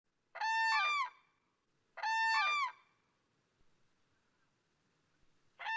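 Common crane trumpeting: three loud calls about two and a half seconds apart, each made of two overlapping notes, the second slightly higher and arching up and down. The third call begins near the end.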